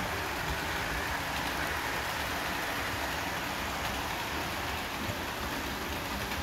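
Steady rumble and hiss of model trains running on a layout, their wheels running on the track.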